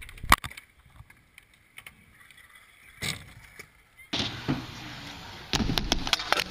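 Scooter riding on skatepark concrete, heard through the camera's own microphone: a sharp clack shortly after the start, then mostly quiet, then a steady rolling rumble of wheels with several clacks from about four seconds in.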